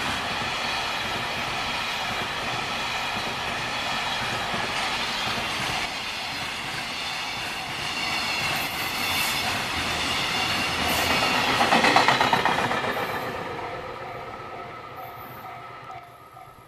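Freight wagons behind an EF66 electric locomotive passing close by, wheels clattering over the rail joints in a steady run. It is loudest about twelve seconds in, then fades quickly as the tail of the train goes past.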